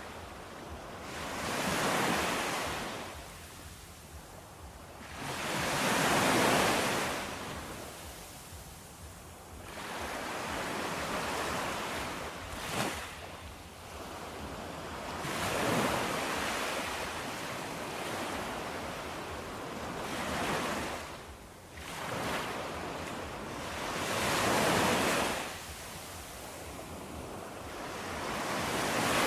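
Ocean waves surging and breaking in slow swells, one about every four to five seconds, with a brief sharp sound a little before halfway through.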